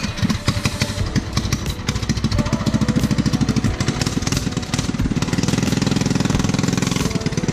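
Small engine of a mini bike running, with a rapid, even firing pulse.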